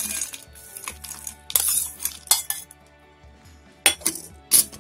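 Steel spoon scraping and clinking against a steel bowl as fried peanuts are scooped into a mixer grinder's steel jar: several separate scrapes, the loudest about a second and a half in, and two sharp clinks near the end.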